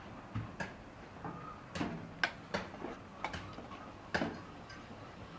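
Light clinks and taps of metal cookware being handled, about seven separate knocks at uneven intervals, the sharpest a little past two seconds in and another just past four seconds.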